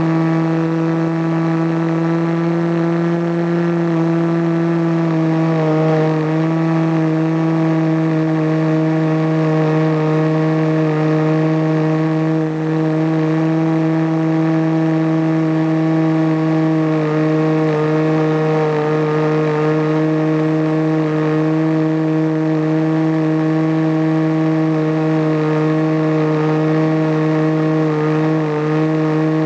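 Engine of a radio-controlled airplane running steadily in flight, picked up by an onboard camera, with rushing wind. The engine note holds an even pitch, dipping slightly a few times.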